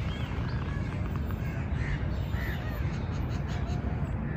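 Birds calling: several short calls scattered over steady outdoor background noise.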